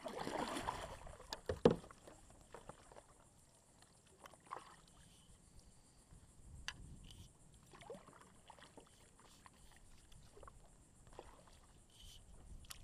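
Kayak paddle strokes splashing and dripping water, a stroke or so every few seconds, with one sharp knock about two seconds in that stands out as the loudest sound.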